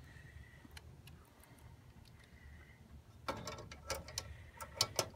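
Hand screwdriver turning a screw into a copier's metal hard-drive mounting plate: a few faint clicks, then from about three seconds in a run of quick, sharp ticking clicks as the screw is driven.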